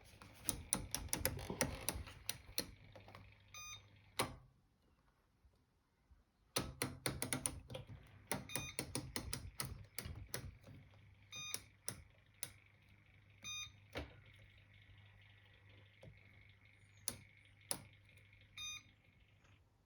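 Hoover Sportswear 1300 washing machine's control panel being set: runs of quick clicks as the programme dial is turned through its positions, with short electronic beeps from the panel several times and a faint steady hum under them.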